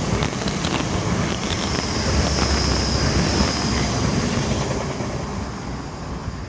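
Wind gusting across a phone's microphone, a steady rumbling buffet with hiss over it.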